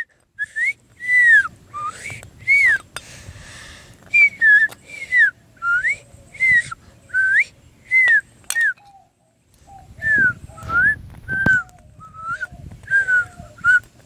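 A person whistling close by, a run of short, quick notes that swoop up and down in pitch, with the breath audible on each note and a brief pause a little past the middle.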